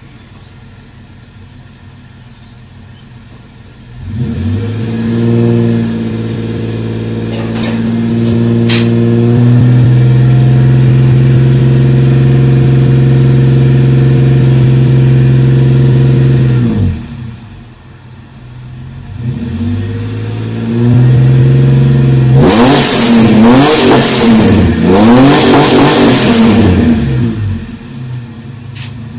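Holden VN Commodore engine, warm, breathing through extractors and a single 2.5-inch exhaust: it idles, is revved up and held at high revs for several seconds, dropped back to idle, revved and held again, then blipped quickly up and down a few times before settling back to idle.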